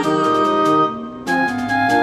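Background music with a melody of held, stepping notes. It briefly drops away about halfway through.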